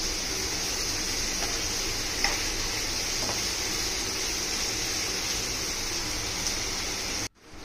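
Sliced onions sizzling steadily as they fry in mustard oil in a nonstick kadhai, being fried until golden, with a few faint taps of a metal spatula stirring them. The sound cuts off suddenly near the end.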